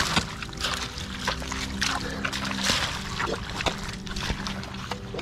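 Hands squelching and splashing in wet mud and shallow water, in a string of irregular wet smacks, over background music with held low notes.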